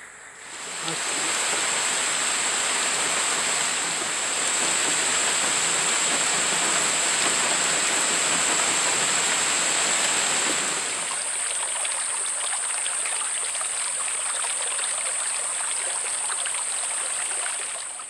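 Heavy rain pouring down in the rainforest, a steady hiss of falling water that becomes slightly quieter about eleven seconds in.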